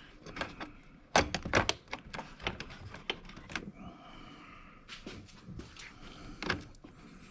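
Irregular metallic clicks and knocks of hand tools and small battery-terminal parts being handled, with two louder knocks a little over a second in.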